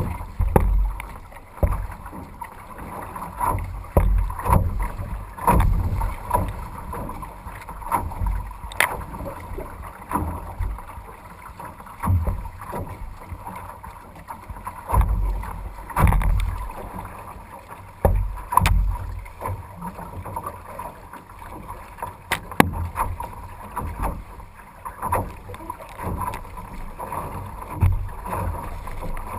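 A canoe being paddled hard through choppy water: splashing and water slapping the hull in surges every second or two, with wind rumbling on the microphone. A few sharp knocks stand out.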